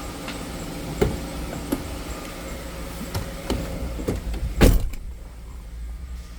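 Car door handling with a few clicks and knocks, then one loud door slam about two thirds of the way in. After the slam the outside sound is muffled. A low engine hum from the running Jeep Grand Cherokee continues underneath.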